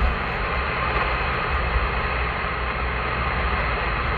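CRT SS 9900 CB radio hissing with steady static on an open channel between transmissions, over a low rumble of the car on the road.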